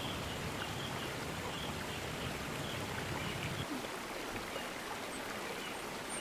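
Steady rush of flowing stream water, with a low rumble underneath that drops away about two-thirds of the way through.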